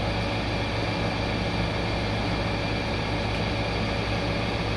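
Steady mechanical hum of running shop machinery, a constant low drone with a faint high whine over it and no distinct clicks or knocks.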